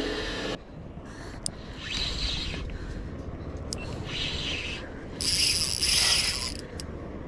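Fishing reel whirring with a gear-like ratcheting, in three short runs about two seconds apart. The last run is the longest and loudest.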